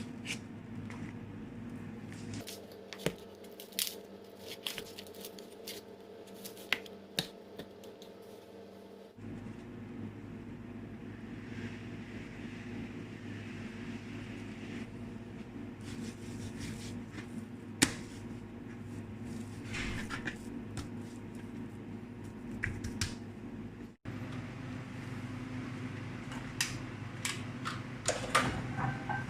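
Kitchen utensils and dishes being handled during food preparation: scattered light clicks and knocks over a steady low hum, with the hum changing abruptly a few times.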